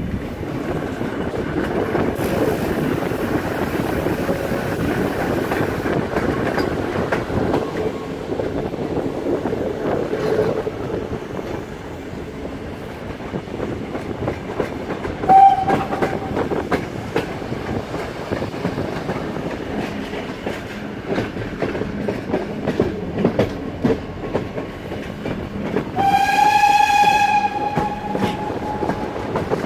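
Pt47 steam locomotive hauling a passenger train: steady running noise with the wheels clicking over rail joints. A short blast of its steam whistle sounds about halfway through, and a longer steady whistle near the end.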